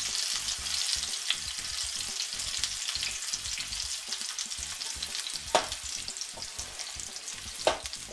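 Sirloin tip roast sizzling in hot fat in a skillet as its fat side is seared brown. A few sharp clinks of metal forks against the pan, the two loudest about five and a half and seven and a half seconds in.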